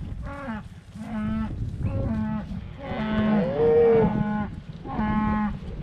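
Cattle mooing: a run of short calls about once a second, with one longer, louder call from about three seconds in.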